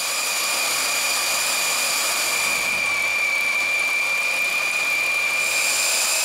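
Cordless drill running at a steady speed with a high whine, driving a welding table's lift mechanism of reduction gear, roller chains, sprockets and screw shafts to raise the table.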